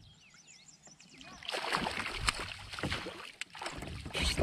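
A hooked pike thrashing and splashing at the water's surface beside a kayak as it is brought in and scooped with a landing net. The splashing starts about a second and a half in, after a few faint bird chirps, and continues in irregular bursts.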